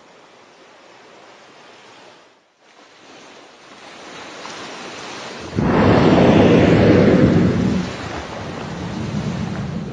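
A whale's blow: a loud, rushing exhale through the blowhole as it surfaces to breathe, starting sharply about halfway through and lasting about two seconds before easing into a softer rush of air and sea.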